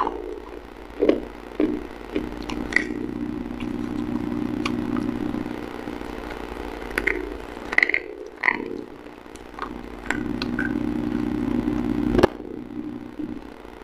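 Slate pencils being bitten and crunched in the mouth, heard as scattered short dry cracks and crunches, the sharpest one near the end. A steady low droning hum runs underneath.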